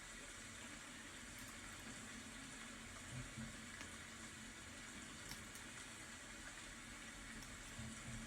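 Steady rain, a faint even hiss with a faint tick now and then.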